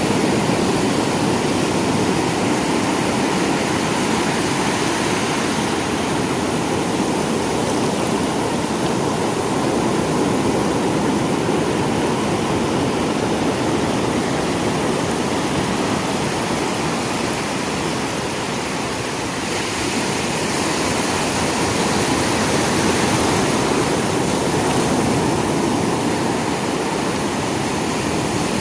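Sea waves washing onto a shore: steady surf noise that swells and eases slowly, easing a little about two-thirds of the way through.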